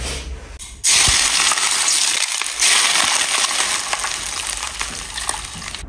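Hot oil poured over a steamed sea bass topped with shredded scallion and ginger, sizzling and crackling loudly. It starts suddenly about a second in, swells again at about two and a half seconds as more oil goes on, then slowly dies down.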